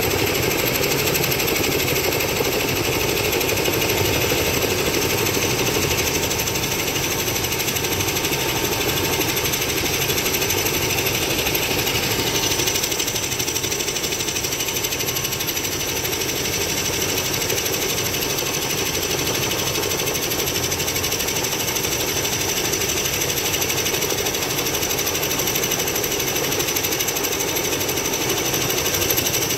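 Helicopter running close by: a fast, steady rotor chop with a high whine that shifts higher about twelve seconds in.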